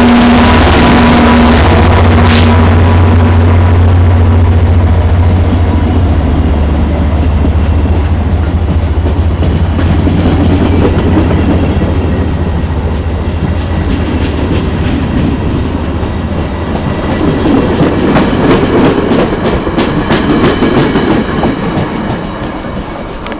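VIA Rail passenger train departing past close by: the F40PH diesel locomotive's steady low engine drone fades over the first several seconds as the passenger cars roll past with a rumble, and near the end rapid wheel clicks over the rail joints come through before the sound tails off as the last car pulls away.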